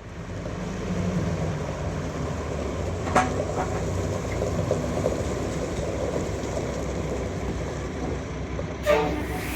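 Heavy construction machinery running steadily with a low rumble, with a sharp clank about three seconds in and another near the end.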